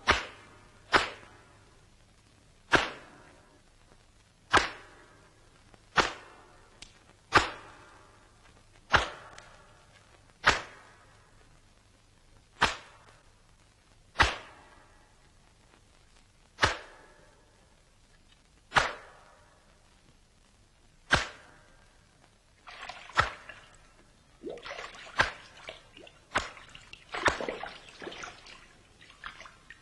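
A series of about sixteen sharp cracks, one every one and a half to two seconds and slowly spacing out. From about two-thirds of the way in, water splashes and sloshes between them.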